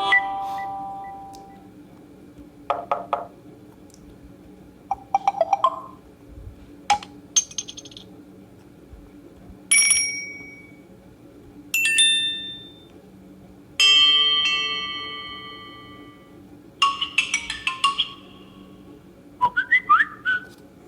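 A series of short Samsung Galaxy Note II notification tones playing one after another, about every two to three seconds. Some are single ringing chimes that fade away over a second or two; others are quick runs of several notes.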